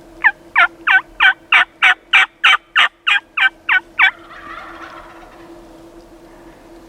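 Turkey yelping: a series of twelve loud, evenly spaced yelps at about three a second, each note breaking from high to low, followed by a short, fainter rattling sound.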